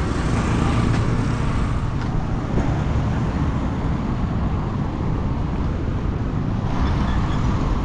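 Road traffic: motor vehicles running close by, a steady rumble of engines and tyres.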